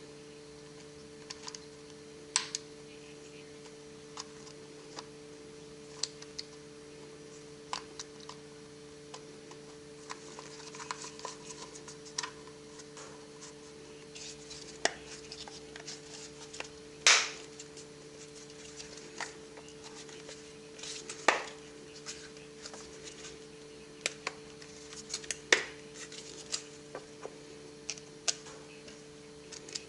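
Hands working on a power-tool battery pack: scattered clicks, taps and scrapes of small plastic and metal parts, the loudest about two-thirds of the way through. A steady low hum runs underneath.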